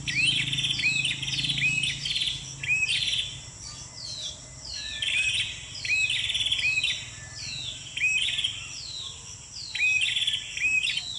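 Prenjak (prinia) song, the kind used as a lure call in bird trapping: sharp down-sliding whistled notes, each followed by a buzzy trill, repeated about once a second in bursts. Under it runs a steady high insect drone.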